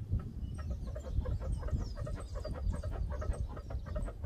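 Chickens clucking in a quick, steady run of short calls, over a low rumble.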